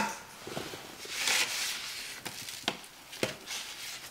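Hand rubbing spice-coated short ribs and sliding them across an aluminum sheet pan: a scraping hiss about a second in, then three sharp knocks as ribs are picked up and set down.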